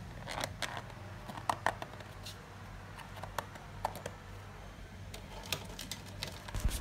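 Clear plastic lids being pressed and snapped onto thin plastic food containers: a scattered series of short, sharp plastic clicks at irregular intervals.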